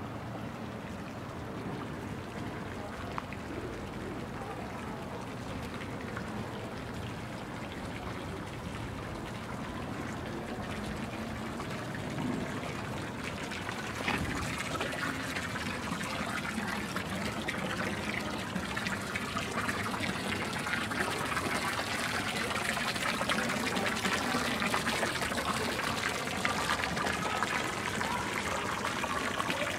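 Running water trickling and splashing, growing louder from about halfway through.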